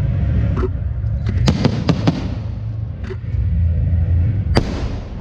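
Fireworks going off: a run of sharp bangs, several close together about a second and a half to two seconds in, and one strong crack near the end, over a steady low rumble.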